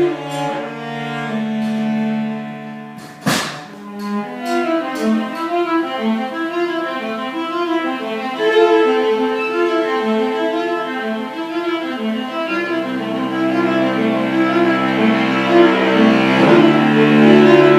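Bowed string instruments, cello and violin, playing a rehearsal passage: sustained notes and a repeated pulsing figure that grows fuller and louder toward the end. A single sharp knock about three seconds in.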